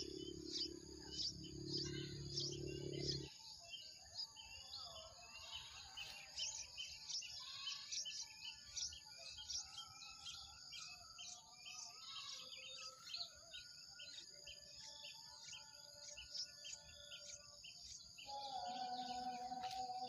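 Yellow-vented bulbul nestlings begging at the nest: a long series of short, high chirps, about three a second. A low drone stops about three seconds in, and a steady musical tone comes in near the end.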